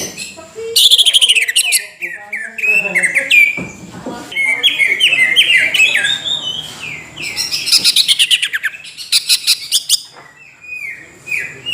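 Cucak ijo (green leafbird) singing loudly. Its varied song runs in phrases of sharp down-slurred whistles and fast chattering trills, with short pauses between them. It is used as a lure song (pancingan) to set other cucak ijo singing.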